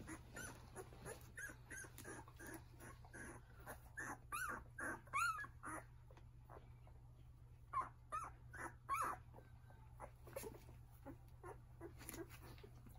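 Newborn Akita–Golden Retriever mix puppies squeaking and whimpering in many short high calls, loudest in clusters about four to five seconds in and again around eight to nine seconds, over a steady low hum.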